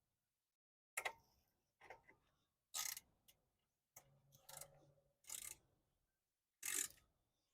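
Ratchet wrench clicking in about six short strokes, roughly a second apart, while tightening brake caliper bolts.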